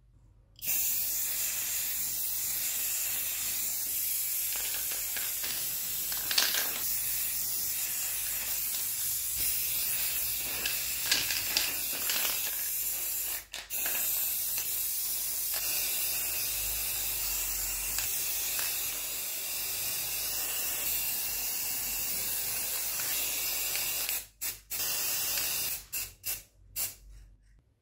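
Aerosol spray-paint can hissing in one long continuous spray, broken once briefly about halfway through, then several short bursts near the end.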